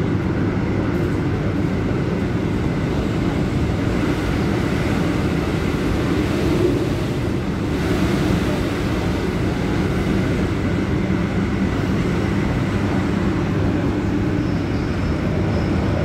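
Steady running noise of an MTR Tung Chung line K-Train, heard inside the carriage while the train travels between stations, with a faint high tone coming in near the end.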